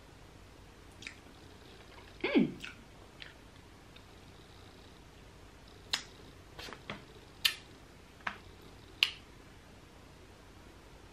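Close-up mouth sounds of eating grilled titus fish (mackerel) by hand: a few sharp lip smacks and sucking clicks spaced over several seconds, and one short falling "mm" about two seconds in.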